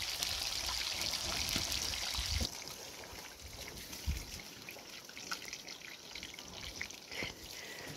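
Small snow trout frying in hot oil in a pan over a wood fire: a steady sizzle that drops off abruptly about two and a half seconds in, leaving fainter sizzling with scattered light clicks.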